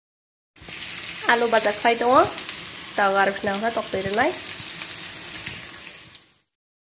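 Potato pieces frying in a pan on a gas stove: a steady sizzling hiss starts about half a second in and cuts off suddenly near the end. Two short runs of rising pitched sounds sit over the sizzle, about a second in and again about three seconds in.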